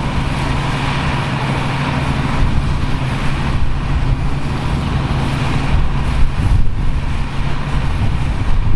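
Engine of vintage farm machinery running steadily: a constant low hum with a rushing, working noise above it.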